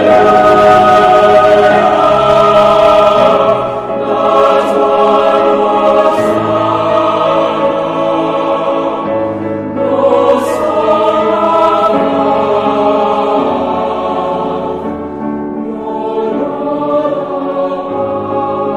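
Slow choral music: voices holding long chords that change every few seconds.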